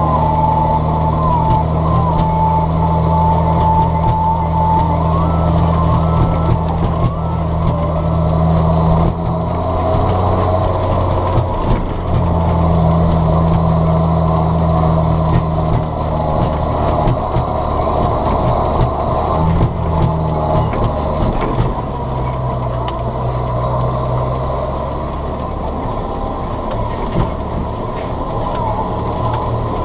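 John Deere 7710 tractor's six-cylinder turbo diesel running hard, its engine note shifting a few times as revs and load change, with a high whistling tone in the first few seconds.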